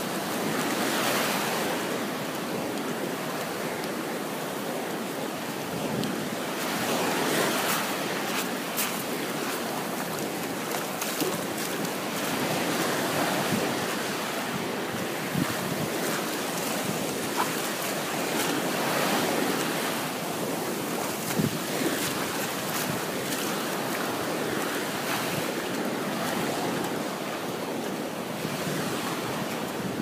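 Small waves washing up on a beach, the surf swelling and easing about every six seconds, with steady wind noise on the microphone.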